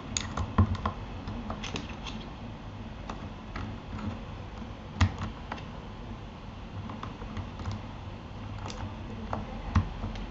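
Typing on a Keychron K8 mechanical keyboard fitted with Gateron Aliaz Silent switches: irregular key presses, a couple a second, with a few louder knocks.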